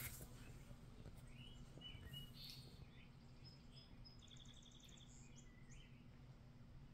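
Near silence: a faint steady low hum with scattered faint high-pitched chirps and a short rapid trill in the middle.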